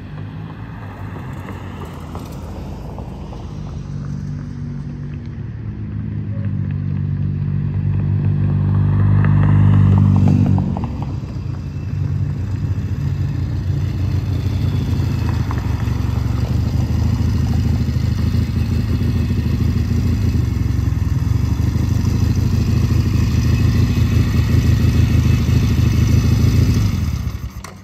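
1975 Norton Commando 850's 828cc parallel-twin engine running as the motorcycle rides up, growing louder over the first ten seconds, then running steadily close by until it is switched off suddenly near the end.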